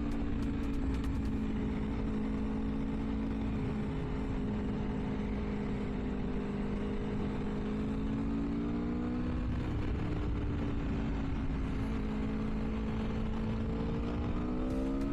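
Aprilia Tuono V4's 1077cc V4 engine on its stock exhaust, running at a steady cruise while riding. Its pitch dips twice and rises near the end as the throttle is opened.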